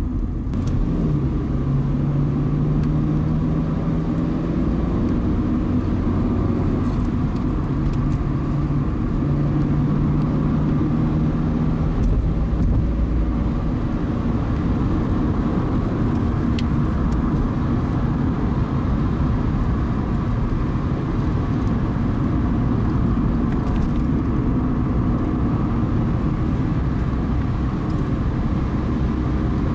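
Car driving along a road: a steady rumble of engine and tyre noise, with a low engine hum that comes and goes.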